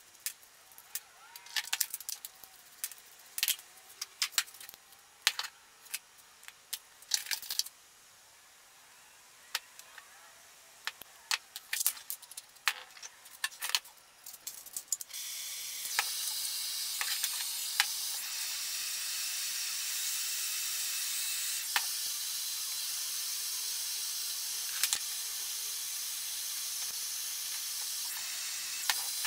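Copper pipe pieces and metal tools clink and knock on a workbench. About halfway through, a propane torch comes on and burns with a steady hiss, heating a copper joint for sweat-soldering.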